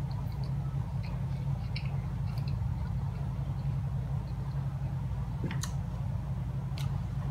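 A person chewing a mouthful of rice and lamb, with small wet mouth clicks, over a steady low hum. Two sharper clicks come near the end.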